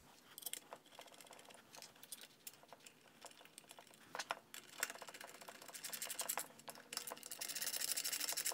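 Small clicks and taps of metal parts being handled, then, from about five seconds in, a rapid run of fine clicking from a hand ratchet driving in the bolts that hold the carburetor mounting bracket to the engine.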